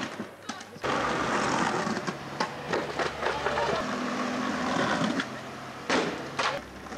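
Skateboard rolling on rough pavement: a steady rumble broken by several sharp clacks.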